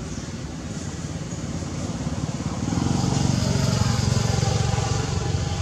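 A motor vehicle's engine passing by, growing louder from about halfway through and easing off near the end.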